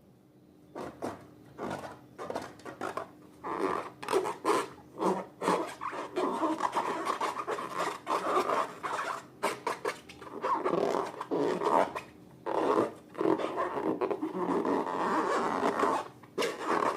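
Slime being worked by hand: irregular sticky squishing, rubbing and crackling with many small clicks, starting about a second in.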